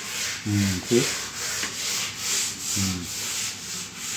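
Stiff brush scrubbing the wall of a fibreglass water tank in quick back-and-forth strokes, about two to three a second, scouring soil off the surface.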